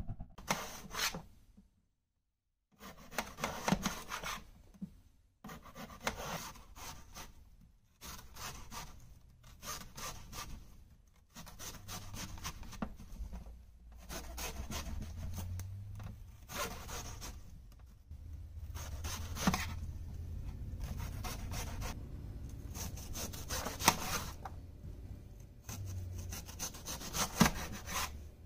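Knife slicing raw potatoes and an onion on a metal cutting sheet: repeated scraping, slicing strokes, with a few sharp taps of the blade against the metal.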